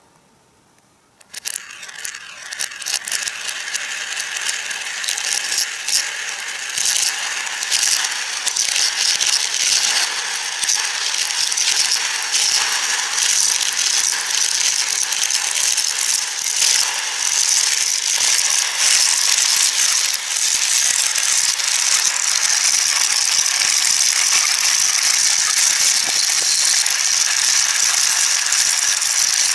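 Marbles clattering and rolling along a marble run track. A sudden start about a second in grows into a dense, continuous rattle of many small clicks.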